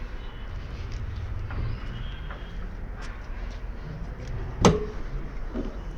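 A single sharp knock, like a latch or panel being handled, over a steady low rumble.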